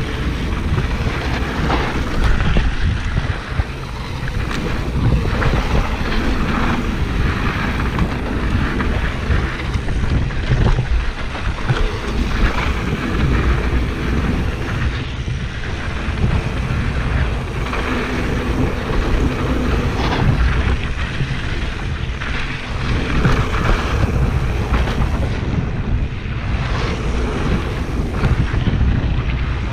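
Wind buffeting the microphone of a mountain-biker's action camera while riding a dirt trail. Under it run the rumble of knobby tyres on dirt and the bike's rattles and jolts over bumps.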